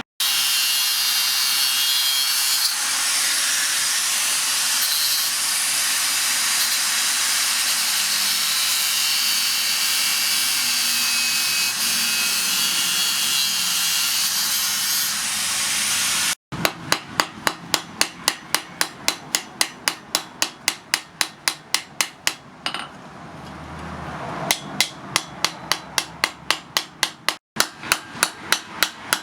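A steady grinding hiss, typical of an angle grinder working steel, for about the first half. Then, after a sudden cut, a hammer strikes steel on an anvil about three times a second, stops briefly and starts again: the steel from a circular saw blade being forged into an axe.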